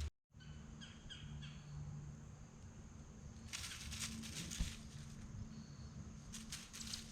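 A few faint bird chirps in the woods, then two spells of rustling and a single soft thump.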